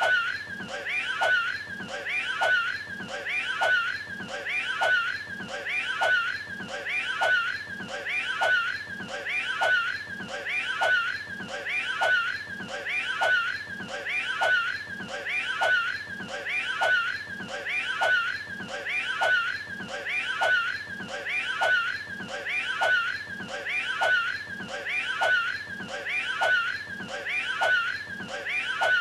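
A strained vocal retching and hacking, a cartoon-style throwing-up sound, repeated in an identical loop about once a second.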